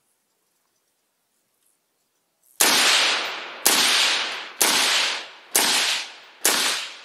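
Five suppressed rifle shots fired about a second apart through a muzzle suppressor. They start about two and a half seconds in, and each one fades out over most of a second.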